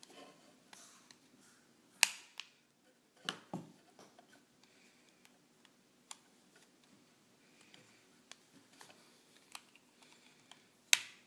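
Sharp clicks and knocks of a spring airsoft pistol's parts as the slide and recoil spring are handled and fitted onto the frame. The two loudest single clicks come about two seconds in and near the end, with a few fainter ones between.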